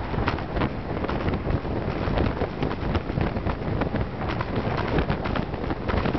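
Wind rushing over the camera microphone on a moving road bike, a steady low rumble with frequent short crackles and clicks through it.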